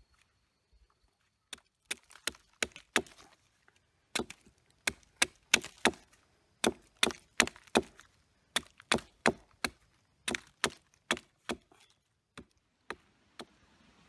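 Firewood being chopped: sharp wooden strikes in quick runs of three to five, about three a second, with short pauses between runs.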